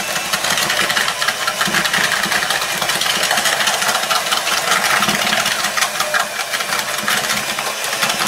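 Electric hand mixer running steadily at speed, its twin beaters creaming butter and sugar in a plastic bowl, with a dense rapid ticking of the beaters through the mixture.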